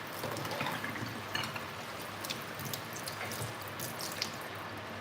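Water running from a kitchen tap into a sink, with small knocks and splashes of food being handled in the stream. The flow cuts off near the end.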